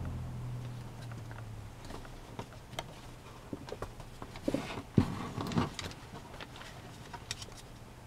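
A sheet of origami paper rustling and crackling as it is folded and creased by hand, with scattered small clicks and a louder burst of crinkling about five seconds in.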